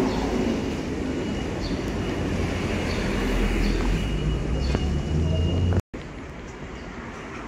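Street traffic noise with a low rumble of passing vehicles, cut off abruptly just before six seconds and followed by quieter street ambience.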